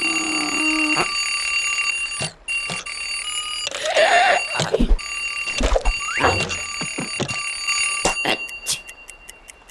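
Cartoon alarm clock ringing steadily, a high continuous ring. Several knocks and sweeping sound effects come over it, and the ringing cuts off about nine seconds in.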